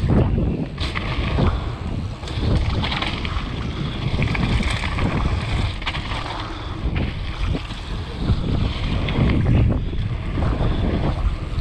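Wind buffeting the microphone and tyres rolling over a dry dirt trail as a downhill mountain bike descends at speed, with frequent short knocks and rattles from the bike over bumps.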